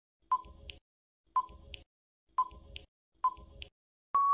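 Quiz countdown timer sound effect: four ticks about a second apart, each a short ping followed by a softer click, then a steady single-pitched beep starts about four seconds in as the countdown runs out.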